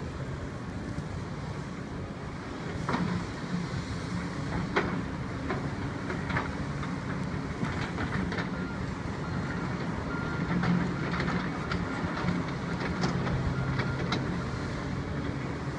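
Construction site noise: a machine engine running steadily, with scattered sharp knocks. A run of short high beeps sounds from about halfway through to near the end.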